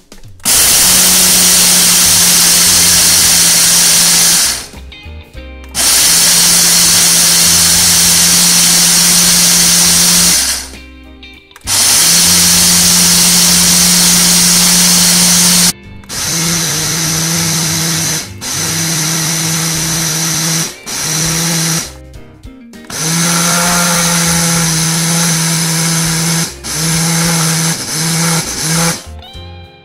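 High-speed countertop blender grinding dry whole spices (black peppercorns, coriander seeds, dried red chillies) into a fine powder. It runs in three long runs of about four seconds each with short stops between, then in a string of shorter pulses.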